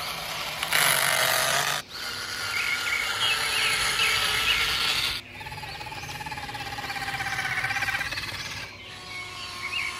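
Small electric motors of radio-controlled construction vehicles running in short clips cut together, one a steady wavering whine in the second half. Birds chirp in the background.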